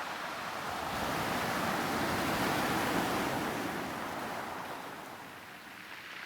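Soft, steady rushing noise that swells about a second in and fades away over the next few seconds.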